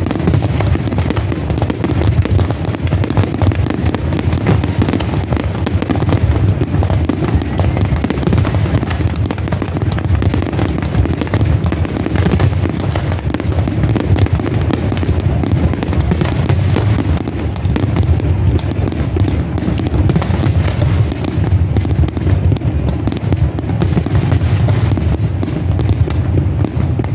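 A rapid, unbroken barrage of aerial fireworks: shells and comets firing and bursting one over another, giving a continuous loud rumble of booms mixed with crackle.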